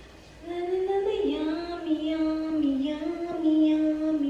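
A woman singing a wordless tune to herself in long, slightly wavering held notes, starting about half a second in.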